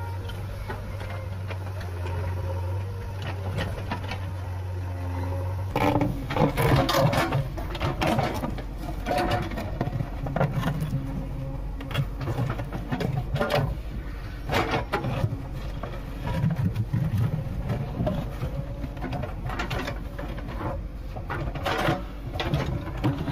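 JCB backhoe loader's diesel engine running steadily while its excavator bucket digs. From about six seconds in, the bucket scrapes and knocks on rock and soil in frequent clanks over the engine.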